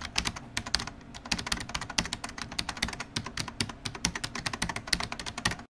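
Fast keyboard typing: a dense run of irregular key clicks, several a second, that cuts off suddenly near the end.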